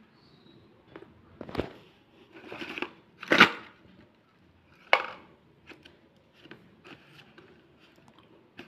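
Cardboard boxes of thick white slate pencils being handled: the pencils clicking and knocking against each other and against the cardboard, with short scraping rustles. The loudest knock comes about three and a half seconds in, with another sharp one near five seconds.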